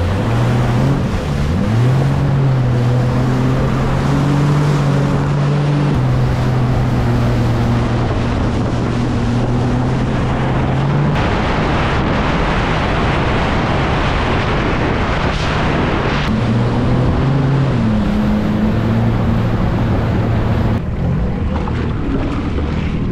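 Jet ski engine running under throttle at speed, with water spray hissing off the hull and wind buffeting the microphone. The engine pitch rises about two seconds in and holds. It is swamped by the rush of spray and wind for a few seconds past the middle, then comes back with a dip and rise in pitch.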